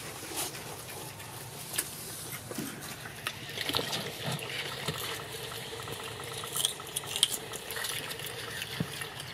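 Macaques eating fruit close by: wet chewing and smacking, with scattered small clicks and brief scuffles among the group.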